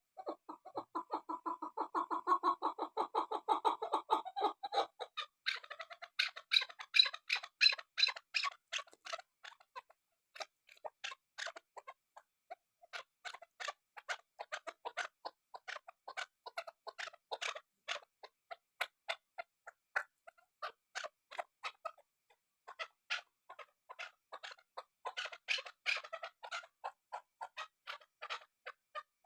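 Chukar partridge calling: a long run of rapid, short clucking notes. The notes are lower and closely packed for the first few seconds, then rise in pitch and become more spaced out with short gaps.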